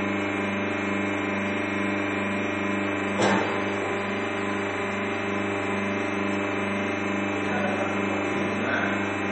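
Electric notebook edge-squaring machine running with a steady hum that pulses a few times a second. A single sharp knock comes about three seconds in, and paper stacks rustle against the machine near the end.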